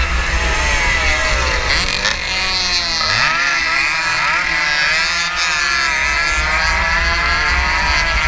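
Onboard sound of a 115cc racing motorcycle engine at high revs. The pitch drops as the bike slows for a corner about two to three seconds in, then climbs again as it accelerates out, with wind buffeting the microphone throughout.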